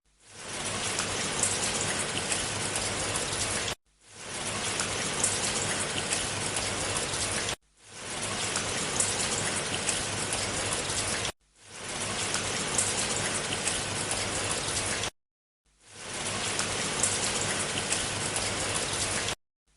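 Rain falling, a steady hiss of drops with sharper individual drop hits. It comes in five stretches of about four seconds, each fading in and then cutting off abruptly.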